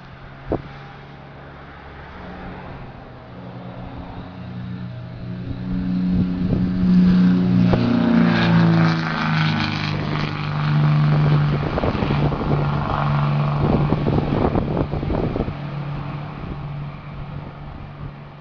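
Twin piston-engine light airplane at takeoff power, its engine drone growing louder as it runs down the runway and lifts off, dropping in pitch as it passes, then fading as it climbs away. A single sharp click about half a second in.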